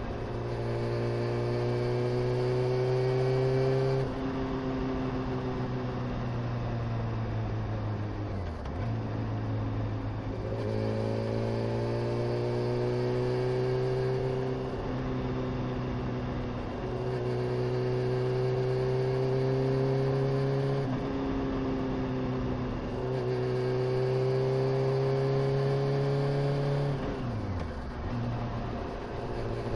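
Honda CBR motorcycle engine under way. Its pitch climbs steadily as it pulls, then drops sharply at each gear change or easing of the throttle, about half a dozen times.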